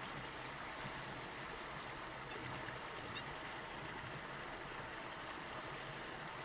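Steady, even background noise outdoors: a hiss with a low rumble beneath it and no clear bird calls, apart from a faint brief high chirp about three seconds in.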